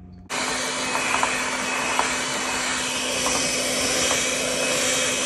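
Electric hand mixer with a whisk attachment switched on about a third of a second in and running steadily with an even motor hum, whipping cold heavy cream in a glass bowl into whipped cream.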